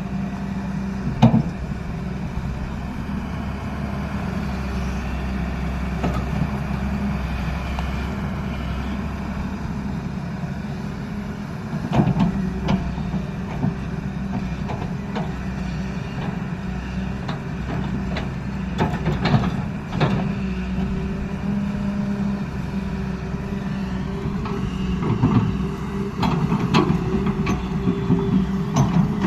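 Hyundai R210 Smart Plus excavator's diesel engine running steadily under work, with occasional sharp knocks and clanks, several in a row near the end.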